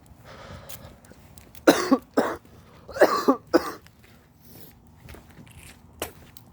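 A person coughing, two short double coughs about a second apart.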